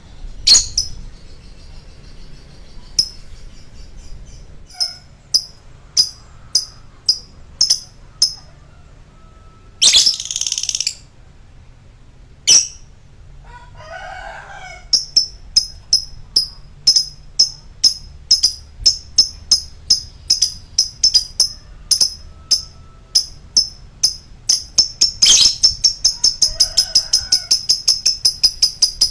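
Lovebird calling: sharp, high chirps repeated about two a second, speeding up near the end into a fast, unbroken chattering run. There is a short rustling burst about a third of the way in.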